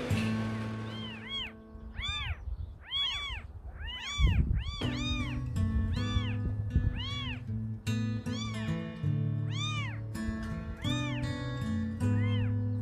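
A very young kitten meowing over and over in short, high-pitched cries, each rising and falling in pitch, about twenty in all.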